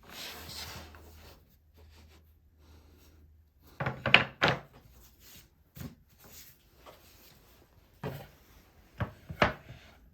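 Wooden boards being handled on a workbench: a short sliding scrape at the start, then a cluster of hard wooden knocks about four seconds in, and more single knocks and thunks near the end.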